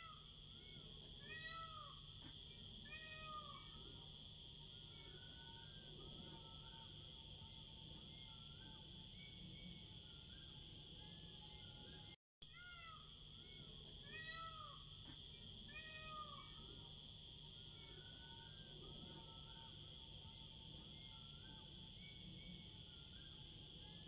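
Faint nature ambience: a steady high-pitched drone with a few short rising-and-falling calls in the first few seconds. The same stretch repeats from about halfway through, as a loop.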